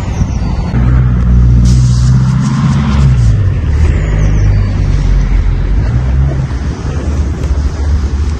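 A low engine hum made of steady deep tones. It swells about a second in, its pitch sags briefly around three seconds in, and it eases off near the end.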